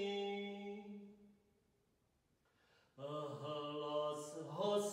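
A man's voice chanting a psalm in Slovak, unaccompanied: a held note fades away about a second in, a silent pause follows, and a new chanted phrase starts about three seconds in.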